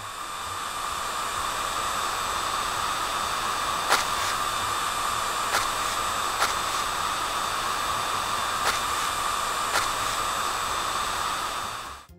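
Cartoon sound effect of a spinning car-wash brush: a steady motorised whir with a hissy edge, broken by a few sharp clicks. It builds up over the first second and cuts off suddenly near the end.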